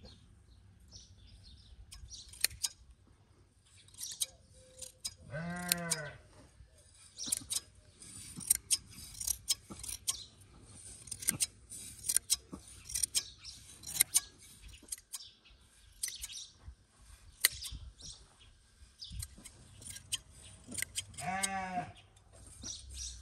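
Hand shears snipping through a sheep's fleece in a run of quick, crisp metal snips. The sheep bleats twice, about six seconds in and again near the end.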